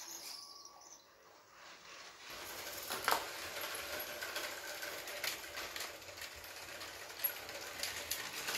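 Lego electric trains running on plastic track: a faint steady motor whirr with light scattered clicks of wheels and rail joints. It starts about two seconds in, after a moment of near silence.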